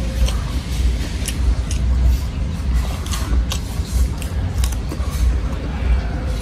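Close-up chewing: scattered crisp clicks and crunches as cucumber and rice are eaten, over a steady low rumble.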